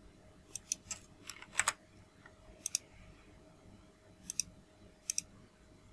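Faint, scattered clicks of a computer mouse and keyboard, several of them in quick pairs.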